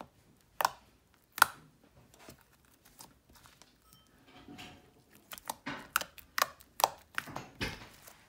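Glue slime, activated with laundry detergent and with small hair elastics mixed in, being pressed and stretched by fingers: sharp clicks and pops, two loud ones in the first second and a half, then a quicker run of smaller pops from about five seconds in.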